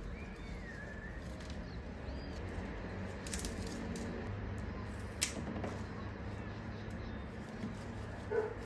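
Cut flower stems being handled and set into a glass vase, with soft rustles and two sharper clicks about three and a half and five seconds in. A faint falling chirp sounds near the start.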